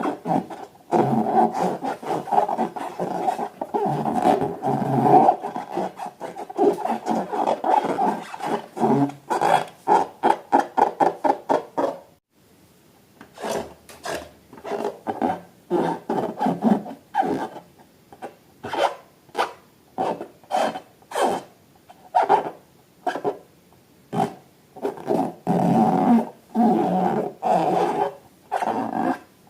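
Inflated rubber balloons rubbed and squeezed by hand, giving a squeaking, growl-like rubbing sound. It is continuous for about the first twelve seconds, then, after a brief pause, comes in separate strokes about two a second.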